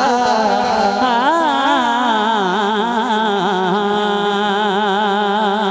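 A man singing a Punjabi manqabat, drawing out the end of a line into one long, ornamented note that wavers up and down in pitch, amplified through a sound system.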